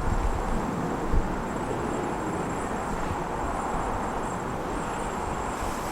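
Steady outdoor background noise: a broad hiss of wind and distant airport traffic, with a faint steady high-pitched whine over it.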